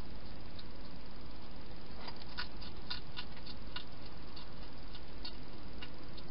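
Wild hedgehog chewing food in a plastic feeding box: a scatter of small, sharp, irregular clicks, bunched around the middle, over a steady hiss.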